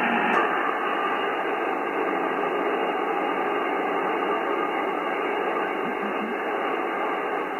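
Icom IC-7300 HF transceiver receiving upper sideband on the 17 m band: a steady hiss of band noise from its speaker with no readable station, cut off thinly as through a narrow voice filter. A small click just under half a second in.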